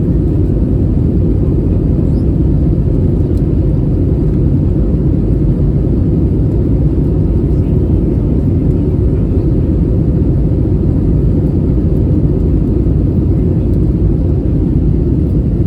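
Steady cabin noise of an Airbus A320neo in flight: an even, unchanging low rumble of engines and airflow heard from a passenger seat.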